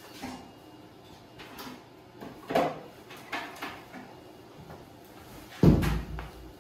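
Scattered light clicks and knocks of a diagnostic cable and flashing tool being handled after unplugging from a motorcycle's under-seat connector, then a heavier thump about five and a half seconds in.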